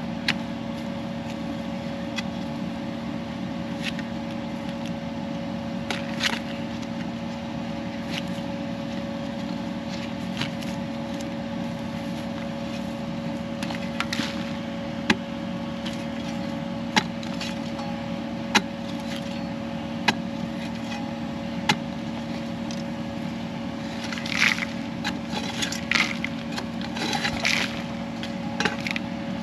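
Excavator diesel engine running at a steady speed, with sharp knocks and scrapes as the toothed bucket scratches at very hard ground; the scraping bunches up near the end.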